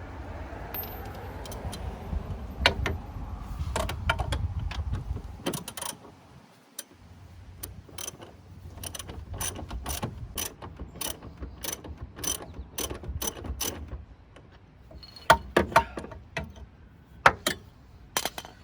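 Hand ratchet wrench turning a bolt, its pawl clicking in an even run of about three clicks a second, with a few louder clicks near the end.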